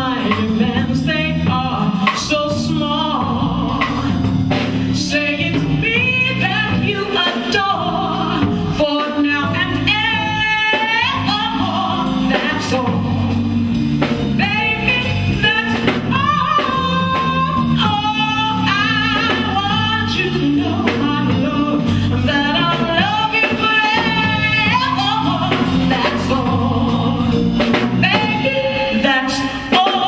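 A woman singing into a microphone with vibrato on held notes, backed by a live band of bass guitar and drum kit.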